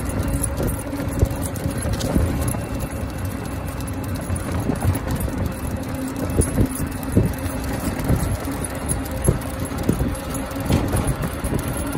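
Running footfalls on asphalt and jingling leash and collar hardware as two leashed huskies run, with irregular knocks about once or twice a second over a steady low hum.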